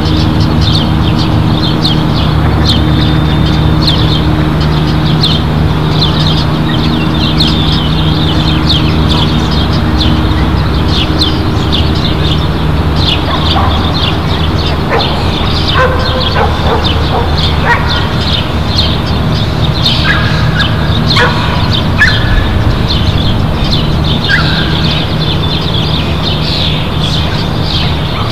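Many small birds chirping in quick short notes throughout, over a steady low hum. A few lower calls come in through the middle stretch.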